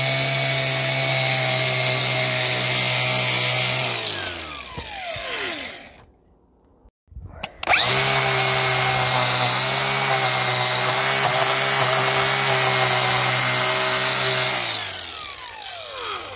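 Angle grinder cleaning up a fresh weld on a steel ball-hitch bracket. It runs at a steady whine, is let off and winds down with falling pitch, stops for a moment, then runs again for about seven seconds and winds down near the end.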